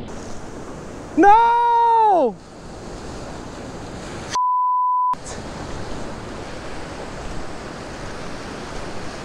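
Surf washing at the water's edge. About a second in a person lets out a single drawn-out cry, and a few seconds in a steady censor bleep about a second long replaces the sound, covering a word.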